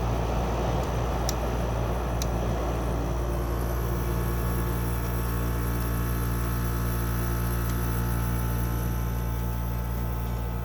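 GE (Haier) 5,100 BTU window air conditioner running: a steady low hum from the compressor and fan. A broader rushing noise fades over the first three seconds, leaving the unit's steady tones.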